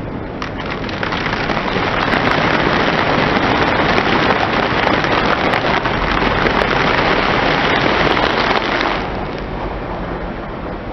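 Car tyre slowly rolling over and crushing a plastic bag packed with noodles: a dense, steady crackle of squashed noodles and crinkling plastic that swells about a second in and falls away near the end.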